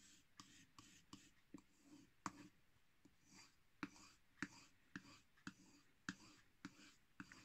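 Carving knife being stropped on a strop charged with white polishing compound. The faint scraping strokes each carry a sharp little click, about two a second: the blade's alternating passes, one side then the other.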